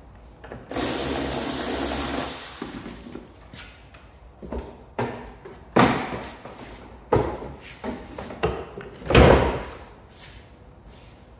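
Clatters and knocks of hands and tools at the crashed car's front end, with a rushing noise for about two seconds near the start. The steel bonnet is lowered and shuts with a heavy thump about nine seconds in.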